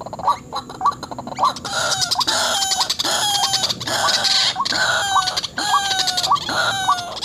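White-breasted waterhen calling. It starts as a series of short rising notes, about three a second. From about a second and a half in it turns to louder, harsh, rhythmic repeated calling.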